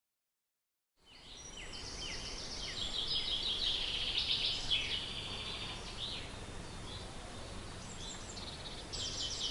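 Small songbirds singing, starting about a second in: repeated chirps and quick rattling trills, the busiest stretch a couple of seconds after they begin.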